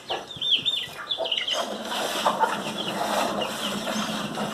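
Chickens calling with short, high, curving chirps for about the first second and a half, then a steady rushing noise with a low hum takes over.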